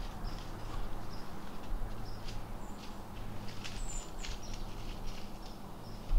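Woodland ambience: short, high chirps repeat about once a second, with scattered soft clicks and rustles and a low steady hum underneath.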